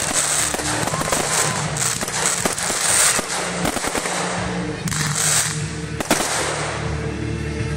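Fireworks display set to music: a steady rushing hiss from ground fountains and several sharp bangs of bursting shells, the sharpest about six seconds in, over loud recorded music with held low notes.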